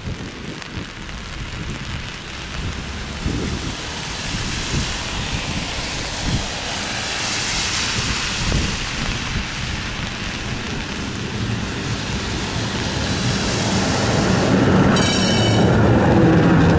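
Tram running along the track: a continuous rumbling, rushing noise that grows louder toward the end, with a brief high squeal near the end.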